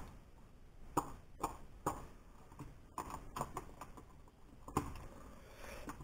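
Faint, scattered clicks and taps as the circuit board and small parts of a disassembled Jamara Fendt 1050 toy tractor remote control are handled on a wooden workbench, about half a dozen over several seconds.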